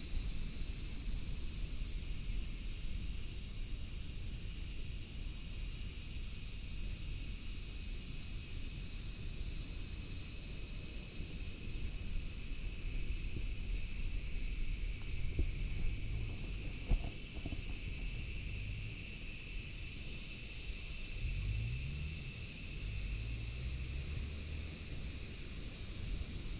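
Steady high-pitched chorus of insects, with a low rumble of wind on the microphone and a few faint clicks about two-thirds of the way in.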